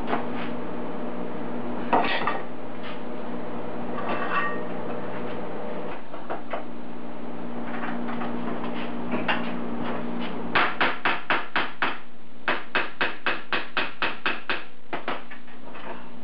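Cast-iron bench vise being worked by hand: a sharp metal clank, then two runs of quick, even clicks, about five a second, as the vise handle is spun to open the jaws, over a steady shop hum.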